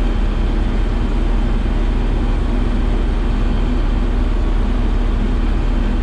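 Vehicle engine running steadily, with a constant low hum and rumble and no change in speed.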